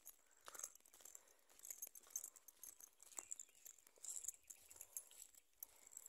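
Faint, irregular footsteps and scuffs on a dry dirt forest path with fallen leaves, with a faint high hiss behind them.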